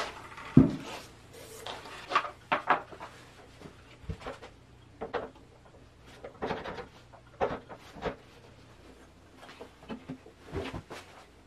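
Scattered knocks, clunks and rubbing as wooden bandsaw parts, a rubber V-belt and a small electric motor are handled and fitted. A sharp knock about half a second in is the loudest.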